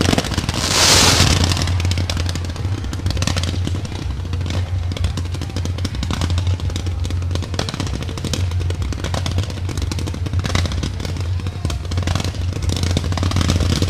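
Fireworks going off in rapid succession: a dense, continuous string of bangs and crackles from many shells bursting close together, loudest about a second in, over a steady low hum.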